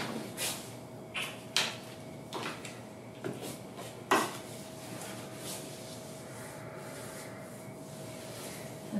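A handful of soft knocks and rustles, about six, mostly in the first half, over a steady faint hum.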